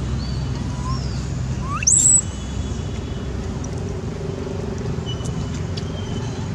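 Outdoor ambience: a distant engine drones steadily, and about two seconds in a short, shrill call sweeps sharply upward in pitch, the loudest sound here, with a few faint high chirps before and after.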